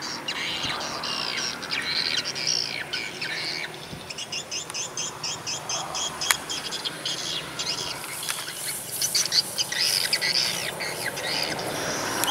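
Birds chirping and calling, with quick repeated trills through much of it and a single sharp click a little after six seconds.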